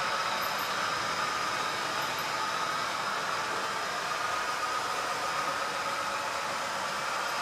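Steady hum from a OO gauge model Peak diesel's DCC sound decoder playing its diesel engine sound, mixed with the rumble of the model train's wheels on the rails.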